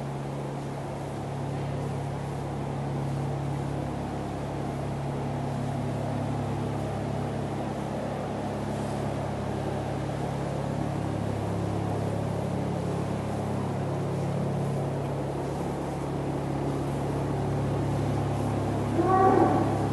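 Steady low mechanical hum of running barn machinery, with a short call near the end.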